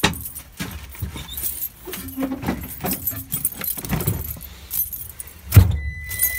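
Rattling, clicks and knocks of someone climbing into a skid steer's cab over its metal step and grab bars, with a heavy thump about five and a half seconds in.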